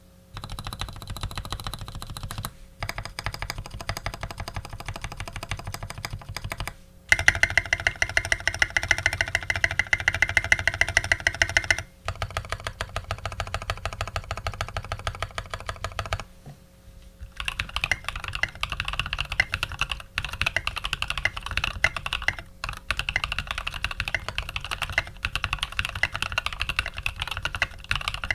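Custom Dolphin Ringer re mechanical keyboard with lubed Cream linear switches on an aluminium plate and SA-profile keycaps, typed on steadily in several runs of fast keystrokes with brief pauses between them. A louder stretch of typing comes about a third of the way in.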